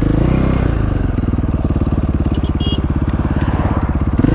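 KTM 530 EXC supermoto's single-cylinder four-stroke engine dropping from a rev to a lumpy, pulsing idle, then revved again near the end.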